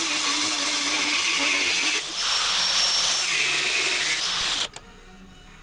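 Power tool cutting a steel knife blank, a loud hissing cut with a high whine on top. It breaks off for a moment about two seconds in, resumes, and stops abruptly near the end.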